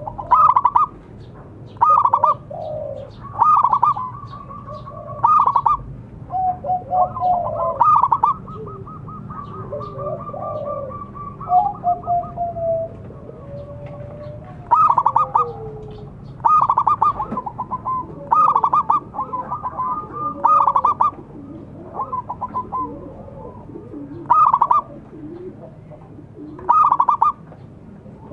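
Zebra dove (perkutut) cooing: loud bursts of rapid staccato coos repeated every couple of seconds, two of them drawn out into long rolling trills. Softer, lower gliding calls sound in between the bursts.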